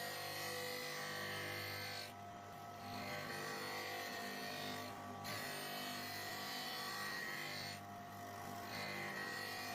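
Electric sharpening machine running with a steady motor hum, and a high hiss that drops out briefly three times.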